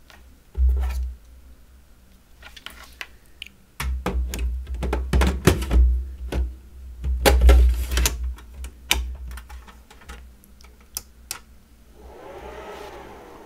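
3.5-inch WD Red Plus drives in their trays being slid and clicked into the bays of a Synology RS422+ rackmount NAS: a run of plastic and metal clicks and knocks with dull thumps. About twelve seconds in, the NAS powers on and its fans spin up to a steady whir.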